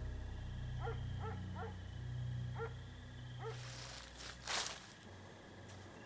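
A canine yipping in the dark: short, rising yips, several in quick succession, over a low steady hum that fades out about four seconds in. About four and a half seconds in comes one brief, sharp noise, the loudest sound here.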